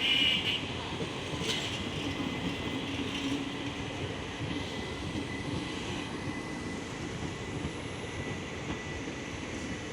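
Passenger train behind a WAP-4 electric locomotive rolling into a station: a steady rumble of the coaches on the track. A brief, loud high-pitched squeal comes right at the start, and a faint steady high whine runs through most of it.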